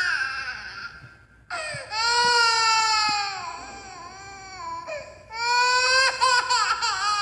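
A cartoon cat's high-pitched, exaggerated crying. One cry trails off, then a long wail begins about a second and a half in and fades, and another wavering, sobbing wail starts near the end.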